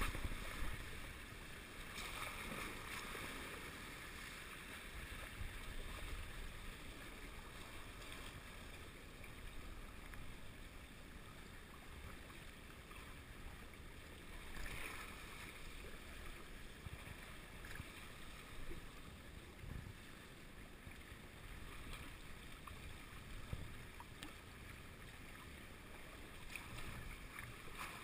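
Water rushing and hissing along the hulls of a Hobie Wave catamaran under sail, over a low rumble of wind on the microphone. The wash grows louder briefly about two seconds in and again around the middle.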